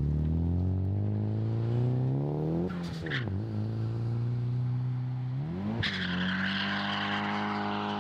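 Nissan Silvia S15 drift car accelerating uphill, its engine note climbing steadily, then dipping about three seconds in and holding steady. Near six seconds the revs jump again and the tyres break into a squeal, which carries on under the high-revving engine as the car slides through the bend.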